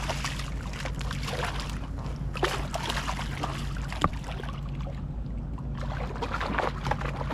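A hooked fish splashing and thrashing at the water's surface beside a kayak while it is pulled in by hand, with water sloshing and a sharp click about four seconds in.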